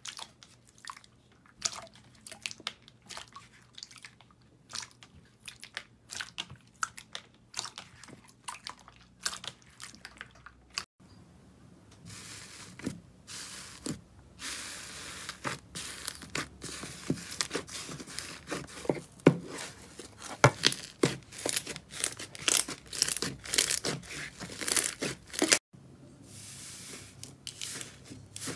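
Hands handling slime: sharp crackles and pops. At first these come a few at a time as a finger pokes soft pink slime. After a brief break at about 11 seconds comes a dense, crisp crackling as a hand presses into blue textured slime, and near the end a softer hiss as fingers press into a dome of pink slime.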